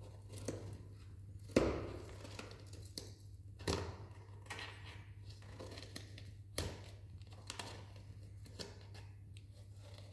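Scattered soft rustles and crinkling knocks, several in ten seconds with the loudest about one and a half seconds in, from the cat and nursing kittens shifting against blankets and cardboard, over a steady low hum.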